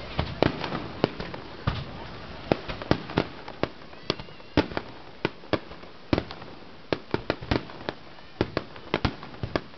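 Fireworks bursting in a rapid, uneven barrage: sharp bangs and cracks, about three a second.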